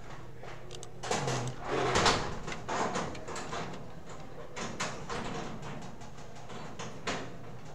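Rustling and scraping handling noises, loudest in the first couple of seconds, followed by a few light clicks.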